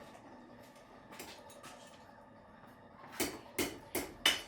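Blacksmith's hammer striking a hot horseshoe on an anvil. After a few faint taps, four sharp blows land in quick succession near the end, about three a second.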